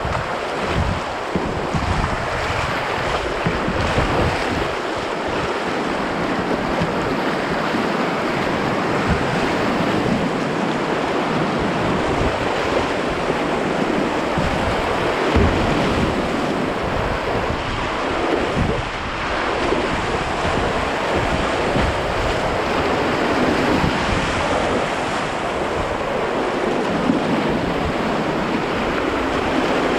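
Steady rush of whitewater river rapids, with wind buffeting the microphone in uneven low rumbles.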